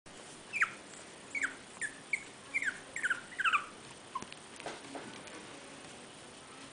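Young Chihuahua puppy whining: a string of short, high cries that each drop in pitch, coming faster over the first few seconds, then a couple of lower, fainter ones before it stops.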